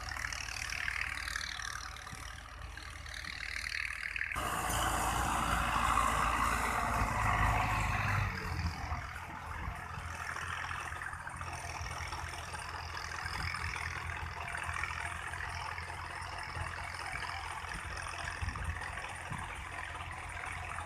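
Belarus 510 tractor's diesel engine running steadily while working with a laser land leveller. About four seconds in it suddenly sounds louder and closer, is loudest for a few seconds, then settles to an even run.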